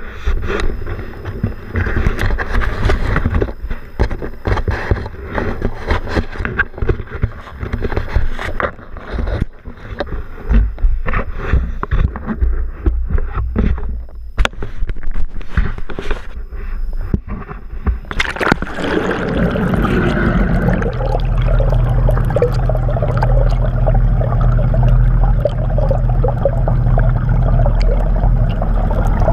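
Wind gusting on a GoPro's microphone with handling knocks aboard a moving pontoon boat. About eighteen seconds in, the sound changes abruptly as the camera goes under water: a steady underwater rush of water and bubbles with a low steady hum.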